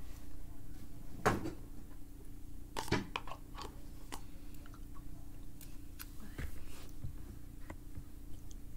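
Eating yogurt from a plastic cup with a metal spoon: the spoon scrapes and taps inside the cup, along with mouth and chewing sounds, with the sharpest scrapes about a second in and about three seconds in. A faint steady hum runs underneath.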